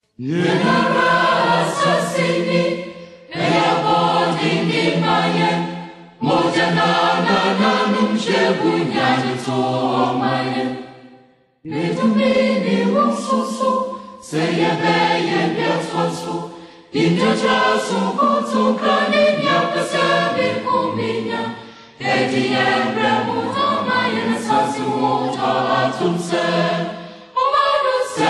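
Music: a choir singing, starting suddenly, in phrases a few seconds long with short breaks between them.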